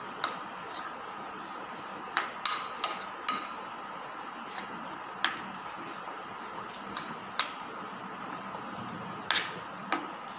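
Steel spoon clinking against a white ceramic bowl while stirring minced chicken filling: a dozen or so short, sharp clinks at uneven intervals, several close together about two to three seconds in.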